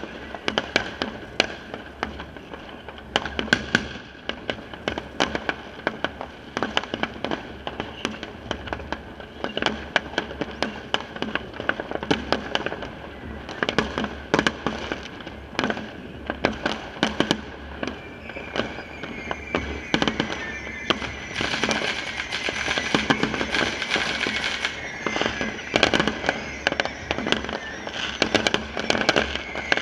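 Many fireworks going off around the neighbourhood: dense, irregular bangs and crackling from rockets and firecrackers, several a second. From about eighteen seconds in, a high whistling tone runs on underneath, falling slowly.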